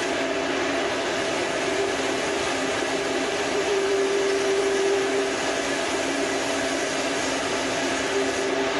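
A machine running steadily: a constant motor hum over a hiss, with no change in pitch or level.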